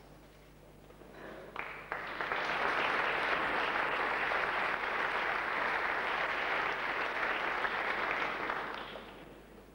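Audience applauding, starting about a second in, quickly building to a steady clatter of clapping and dying away near the end.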